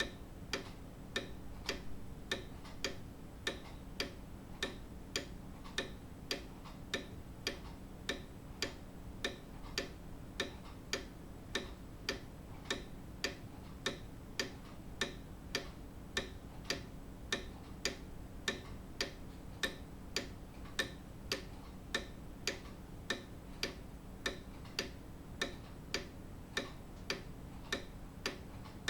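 Grandfather clock ticking steadily, a little under two even ticks a second.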